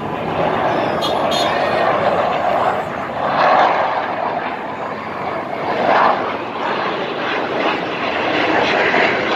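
Jet aircraft flying past in an air-show display: a continuous rushing engine noise that swells twice as the jets pass.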